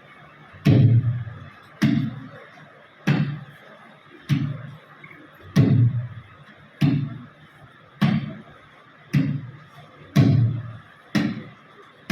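Tabla played in slow, evenly spaced deep strokes, about one every 1.2 seconds, each ringing and dying away, imitating the sound of a running train.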